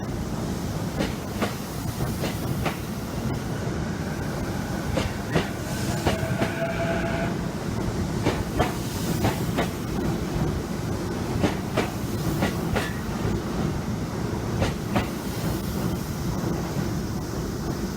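Chuo Line electric train running slowly under a strong-wind speed restriction: a steady low rumble with irregular clickety-clack of wheels over rail joints. A faint whine is heard about four to seven seconds in.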